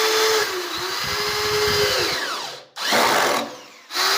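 Electric drill running in short runs as it drives screws into wood, the motor whine winding down and stopping about two and a half seconds in, then spinning up again near the end.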